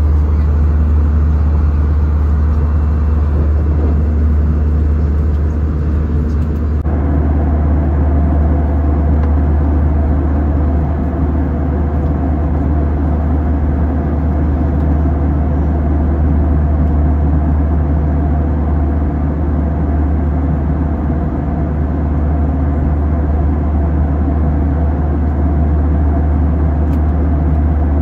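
Airbus A320 cabin noise in flight: a loud, steady low drone of the jet engines and airflow, heard from inside the cabin at a window seat. The tone of the drone shifts slightly about seven seconds in.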